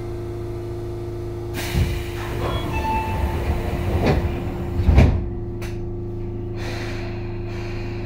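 Sliding doors of a Tobu 9000-series subway car closing: a rush of noise and several heavy thumps, the last and loudest about five seconds in. After it the outside noise is shut out and only the car's steady hum remains.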